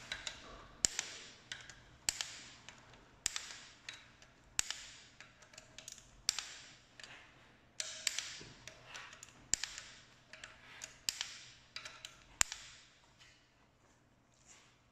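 Ratcheting click-type torque wrench set to 40 Nm, rechecking the cylinder head bolts on a VW 1.8 TSI engine: a sharp click roughly every second or so as the wrench reaches its set torque, with ratchet rattle between the pulls. The clicking stops about two seconds before the end.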